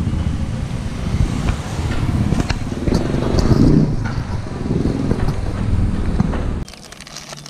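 Motor vehicle engine running close by on a street: a loud, low rumble that swells about three to four seconds in. It cuts off suddenly about six and a half seconds in, leaving a much quieter background.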